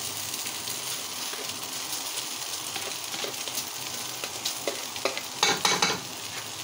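Drained vermicelli sizzling as it drops from a stainless-steel colander into a hot pot, a spoon scraping it out of the colander. Near the end, a quick run of sharp clicks as the spoon knocks against the metal.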